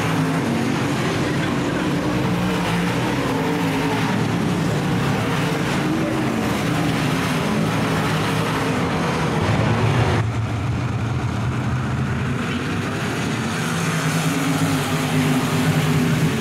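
Dirt-track race car engines running hard, their pitch rising and falling, with an abrupt change in the sound about ten seconds in.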